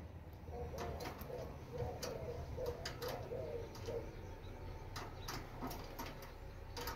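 A bird's low, wavering calls repeated from about half a second in to about four seconds in, with scattered sharp clicks throughout.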